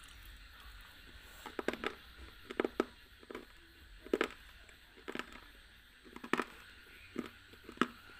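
Close-miked chewing of a hard, dry pinkish block, with sharp crunches at an irregular pace of one to three a second.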